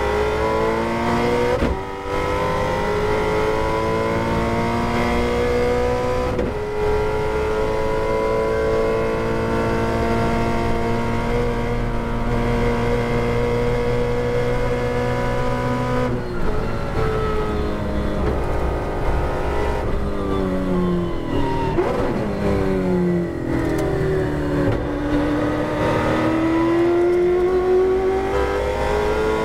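Holden Torana touring car's V8 racing engine at full throttle, heard from inside the cabin. The revs climb through upshifts about 2 and 6.5 seconds in, then hold high and steady at close to 250 km/h. The note changes about 16 seconds in, falls through downshifts under braking from around 20 seconds, then climbs again as the car accelerates out of the corner near the end.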